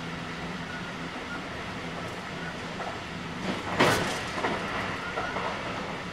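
JR West 223 series 2000-subseries electric train (Toshiba IGBT inverter) running at a steady speed, heard inside the car as a steady low hum and rumble. About three and a half seconds in comes a loud, brief rushing clatter, followed by a few smaller knocks.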